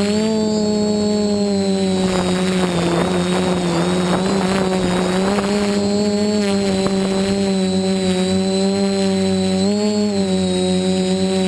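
DJI F450 quadcopter's four motors and propellers humming steadily in flight. The pitch sags with a rush of air noise from about two to six seconds in, then briefly rises near the end.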